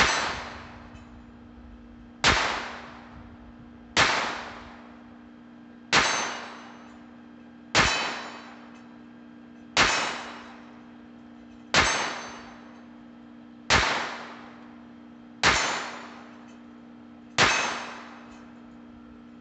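Ruger LCP II .22 LR pistol fired ten times at an even pace, about one shot every two seconds, each sharp report ringing out and fading over about a second and a half.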